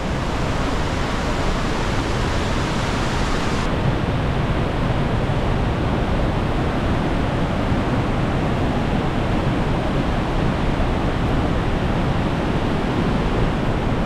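Cascata del Varone waterfall plunging through its narrow gorge: a loud, steady rush of falling water. A little under four seconds in, the highest hiss drops away while the deep rush runs on.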